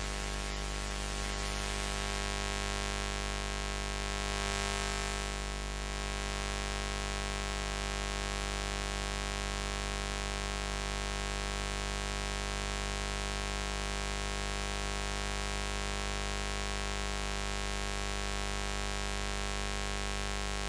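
Continuous steady buzz: a low hum with a dense stack of overtones reaching high up. It swells slightly about four to five seconds in.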